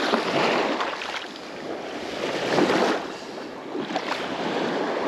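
Small waves washing over a shallow sandy shoreline, the wash swelling and fading every two to three seconds.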